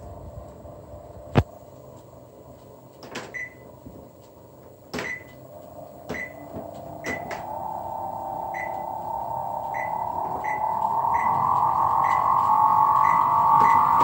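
Image 15.5S treadmill's drive motor, its bearings worn, spinning up: a whine rising slowly in pitch and growing louder as the speed climbs. Short beeps come faster and faster, and there is a sharp click about a second and a half in.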